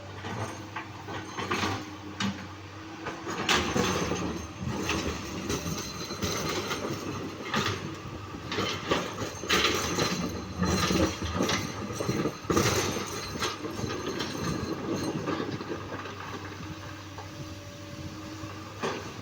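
Komatsu PC200-8 hydraulic excavator running steadily, with irregular clanks, knocks and scraping as its bucket handles boulders; the loudest knocks come about three and a half seconds in and again between about nine and thirteen seconds.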